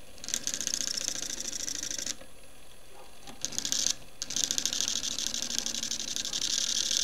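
A 600-watt washing-machine motor runs on a PWM controller while a screwdriver is pressed against its spinning shaft as a brake, giving a high scraping rasp. The rasp is on for about two seconds, stops, comes back briefly, and then runs steadily from about four seconds in as the motor slows under the load.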